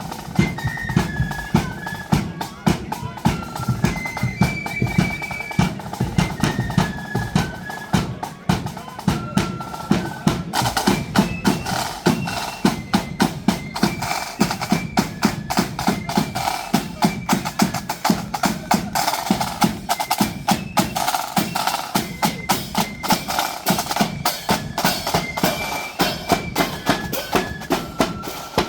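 Marching flute band playing a tune over rapid snare-drum rolls and steady bass-drum beats.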